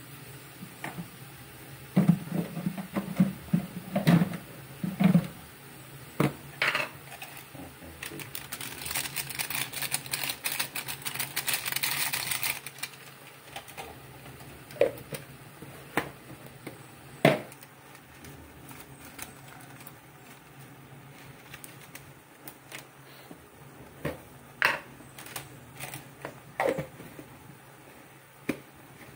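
Metal spoon clinking and scraping against a metal wok while stirring wet salted shrimp, in scattered knocks with a quick run of them a couple of seconds in. A hiss rises for a few seconds near the middle.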